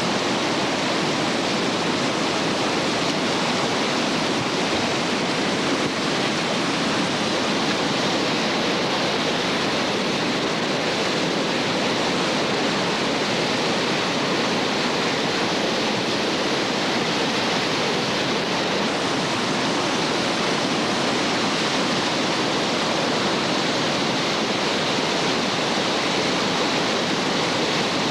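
Steady rushing of whitewater rapids, an even, unbroken noise of fast water pouring over rocks.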